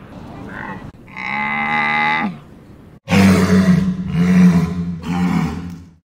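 A camel gives a drawn-out groaning call about a second in, falling in pitch at its end. From about three seconds, louder, deep walrus roars follow in three pulses.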